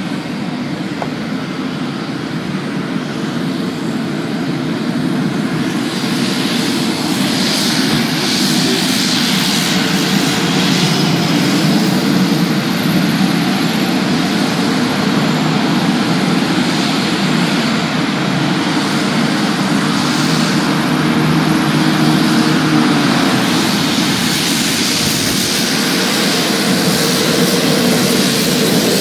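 Pilatus PC-21 trainer's PT6A turboprop engine and five-blade propeller running steadily at taxi power. The sound grows louder over the first ten seconds or so as the aircraft comes closer, then holds level.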